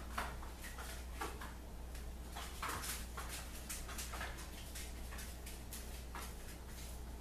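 Red Imp Wedge straight razor scraping through lathered beard stubble around the mouth and chin in short, irregular strokes, each a crisp rasp. The blade is one the owner feels needs a touch-up and may have a rolled edge.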